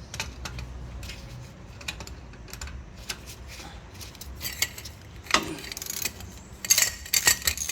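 Metal hand tools clicking and clinking on a rear brake caliper bolt as it is held with channel-lock pliers and worked loose: scattered clicks, a sharp knock about five seconds in, then a fast run of loud metallic clicks near the end.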